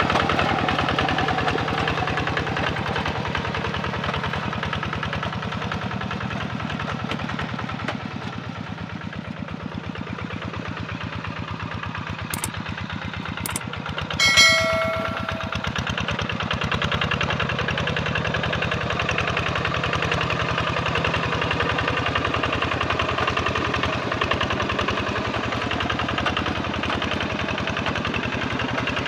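Kubota RD85 single-cylinder diesel engine of a hand tractor running steadily under load while tilling wet paddy mud, with a fast even chugging. About halfway through come two short clicks and then a brief bright chime, a subscribe-button sound effect, which is the loudest moment.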